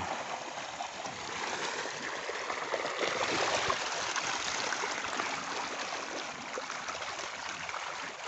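A crowd of farmed Nile tilapia splashing and churning at the surface of a river cage, a dense, continuous patter of many small splashes, a little stronger about three seconds in. The fish are massing in expectation of feed.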